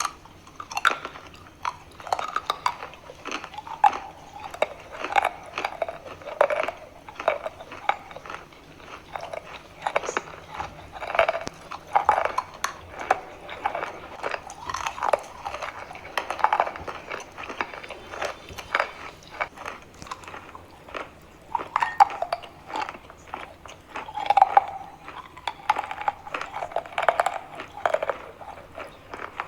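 Chalk being bitten and chewed up close, a run of irregular crisp crunches and crackles.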